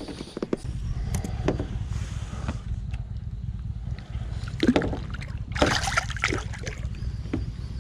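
Steady low rumble around a fishing boat on the water, with scattered knocks and clicks and two louder splashy bursts about five and six seconds in.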